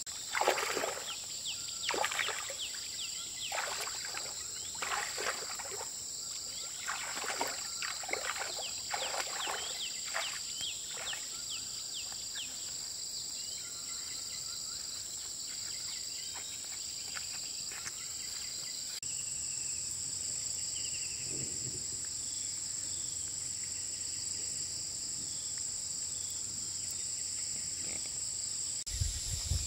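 Feet wading and splashing through shallow paddy water in a run of irregular splashes over roughly the first twelve seconds, then stopping. Insects chirr steadily and high-pitched throughout, one of them in a regular pulsing chirp.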